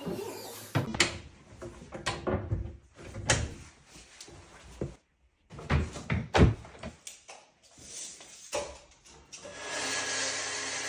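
Knocks and thuds of a kitchen cabinet door, panels and carcass being handled and fitted. About nine and a half seconds in, a portable table saw starts running with its dust extractor, a steady whirring noise.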